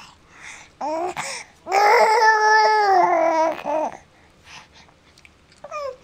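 A baby gurgling: a short vocal sound about a second in, then a long, wavering gurgle of about two seconds, and a brief one near the end.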